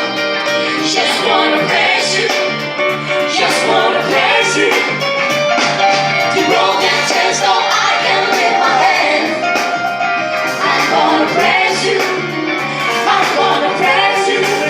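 Amplified live music with a singer, a band playing a song through a sound check.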